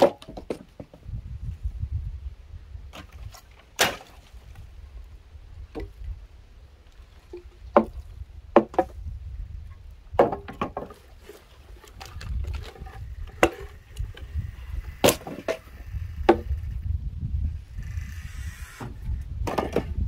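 Wooden poles and sawn planks of firewood being lifted and dropped onto a woodpile, knocking against other wood in irregular sharp clunks.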